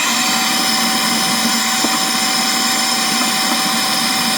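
Hair dryer running steadily, a loud rush of air with a constant whine, blowing heat into a fridge's defrost drain hole plugged solid with ice to thaw it.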